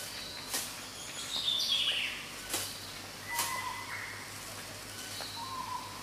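Male riflebird in wing display, its stiff wing feathers making several sharp, brief rustling swishes as it snaps its wings up around its head. Short whistled bird calls sound between them.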